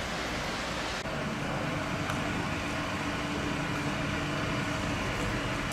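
A vehicle engine running steadily with a low hum that comes in about a second in, over street noise.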